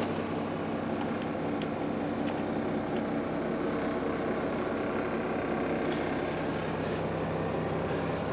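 Iveco Eurocargo 180E24 truck's six-cylinder diesel idling steadily, heard from inside the cab.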